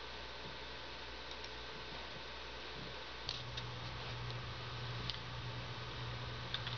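Quiet room tone with a few faint, scattered clicks. A steady low hum comes in about halfway through.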